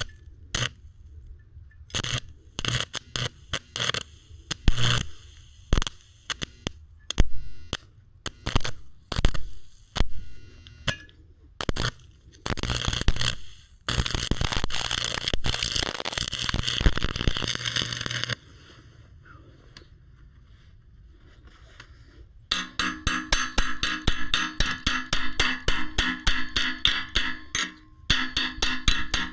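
Steel fabrication noise: scattered sharp metal knocks and clicks, a steady hissing stretch of about five seconds in the middle, then fast, even, ringing metal strikes over the last several seconds.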